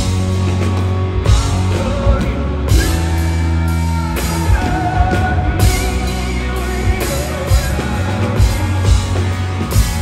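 Live rock band playing loud, with drums, electric guitar and heavy bass, and a singer holding long sung notes over it.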